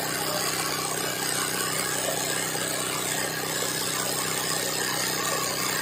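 Sewing machine running steadily at speed, its needle stitching through fabric stretched in an embroidery hoop as the hoop is guided freehand.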